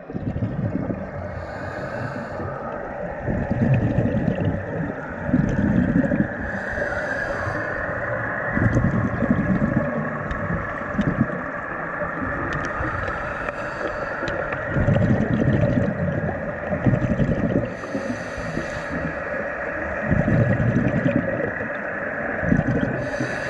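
Underwater sound of bubbles rumbling up in surges every few seconds, over a steady high hum, with brief hisses now and then.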